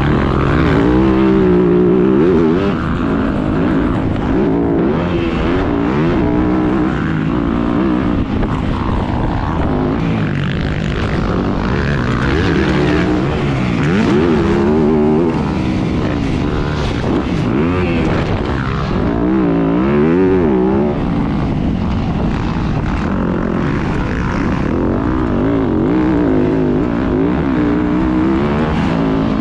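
Yamaha YZ250F's 250 cc four-stroke single-cylinder engine racing on a motocross track, its revs climbing and dropping every second or two as the throttle is opened and shut.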